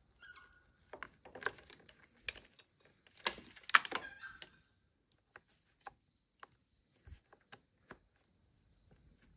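Multimeter test probes being handled and pressed against motorcycle battery terminals: scattered clicks and light rattles, busiest from about one to four and a half seconds in, then a few sparse ticks.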